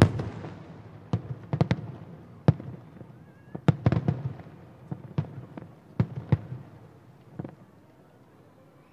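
Aerial fireworks bursting about a kilometre away: a rapid, irregular run of sharp bangs, each trailing off in echo. The bangs thin out and stop about seven and a half seconds in.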